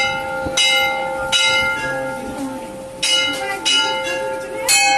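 Hanging brass temple bell struck repeatedly, about five strikes in loose pairs, each ringing on with steady tones that overlap the next strike.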